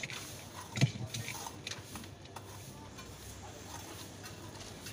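Dry puffed-rice mix poured into a newspaper cone, with light clicks and rustles, and one sharp knock about a second in.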